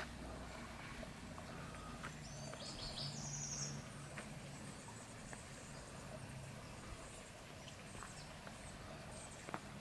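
Quiet outdoor ambience with a few faint, high bird chirps about two to three seconds in, a low hum that swells briefly around the same time, and occasional light clicks.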